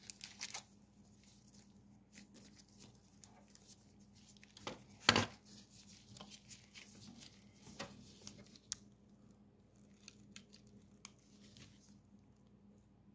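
Crinkling and rustling of wrapping being handled, with one louder rustle about five seconds in, then scattered light clicks and taps.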